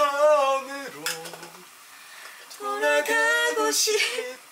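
A woman and a man singing a short tune in turn, with held notes.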